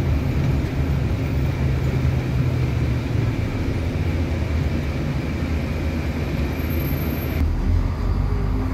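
City bus running in slow traffic, heard from inside the passenger cabin: a steady low engine rumble mixed with road noise. The lowest rumble grows stronger about seven and a half seconds in.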